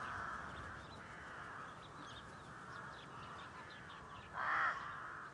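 A crow gives a single short caw about four seconds in, over a faint steady background of outdoor ambience.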